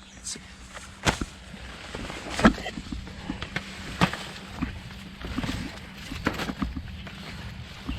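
Footsteps pushing through dense brush, with irregular sharp cracks of stems and twigs snapping underfoot and a steady rustle of foliage between them.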